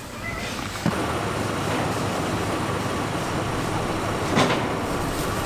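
A vehicle running, a steady rumble and noise that sets in about a second in, with a knock as it starts and a short louder sound near the end.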